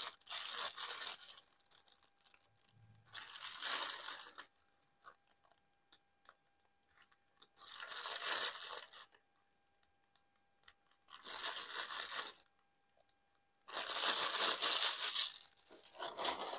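Thin plastic bag crinkling and rustling as it is handled, in five separate bursts of a second or two each with quiet gaps between.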